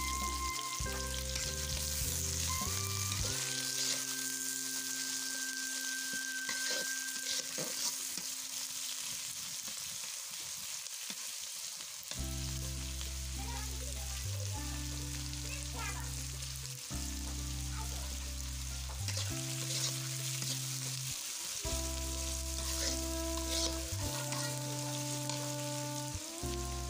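Onions, chillies and garlic sizzling as they fry in hot oil in an iron kadai, with a metal spatula stirring and scraping against the pan. Background music with held notes plays underneath.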